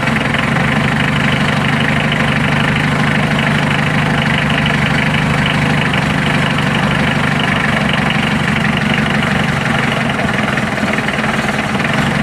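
Mitsubishi 4D56 four-cylinder diesel engine idling steadily with a fast, even clatter, running now that the fault that stopped it starting, a burnt fuel shut-off valve, has been dealt with.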